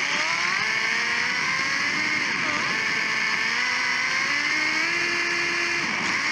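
Electric motor and drivetrain of a Sakura D4 RC drift car whining, heard from onboard. The pitch rises and falls with the throttle over a steady hiss.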